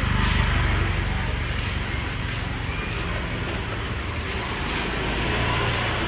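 Street traffic noise: a steady rush of passing vehicles.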